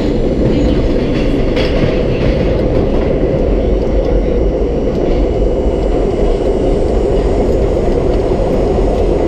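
R32 subway car running through a tunnel, heard from inside the car: a steady, loud rumble of wheels on rail and traction motors, with faint clicking over the rail joints.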